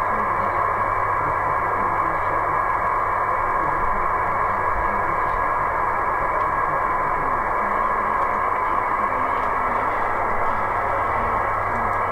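Steady receiver hiss from an 11-metre band transceiver's speaker, tuned to 27.515 MHz on upper sideband with no voice coming through, the noise cut off above the voice range by the radio's narrow filter.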